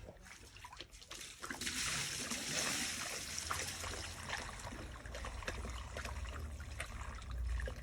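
Water running, starting about a second and a half in, with a few small clicks over it.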